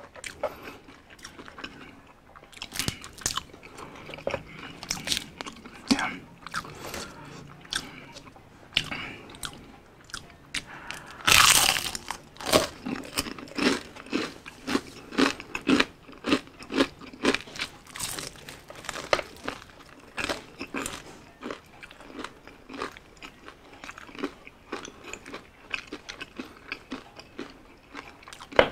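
Crunching bites and chewing of crispy fried chicken, a steady run of crackles with one much louder crunch about eleven seconds in.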